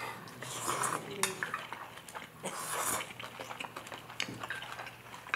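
Close-up eating sounds: Chapaguri noodles slurped off chopsticks, with light clicks of the chopsticks against the dish.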